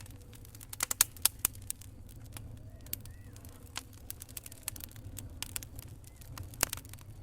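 Wood fire crackling in a fireplace: irregular sharp pops and snaps over a steady low rumble of the flames, with a quick cluster of loud pops about a second in and another loud pop near the end.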